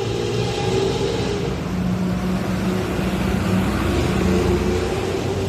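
Hino AK1J bus's diesel engine running steadily through a modified 'ngorok' exhaust, tuned to give a snoring sound.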